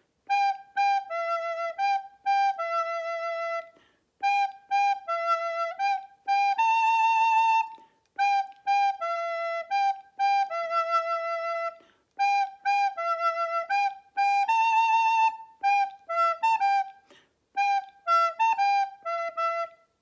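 Soprano recorder playing a simple tune in short, evenly paced notes, mostly repeated pairs moving between G and E with occasional A and B, broken by short rests.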